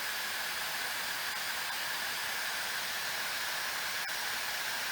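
Hauzzo ionic hair dryer with a brushless motor running steadily on its high speed setting: an even rush of blown air with a whine running through it.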